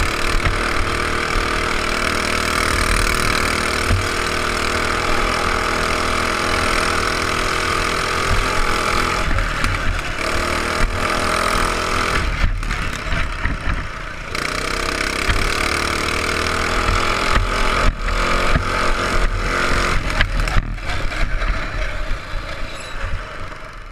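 Baja Warrior mini bike's 225cc single-cylinder four-stroke engine, governor removed, running under riding load, its note rising and falling with the throttle and dropping off briefly several times in the middle. Wind rumble on the camera's microphone runs underneath.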